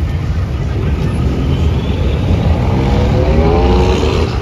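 Engines of vehicles driving past on a street, a dense low rumble, with one engine revving up in a rising note over the last two seconds.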